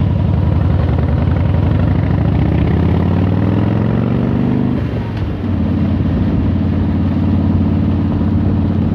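Motorcycle engine pulling along, rising in pitch for the first few seconds, then dropping briefly about five seconds in before running steady.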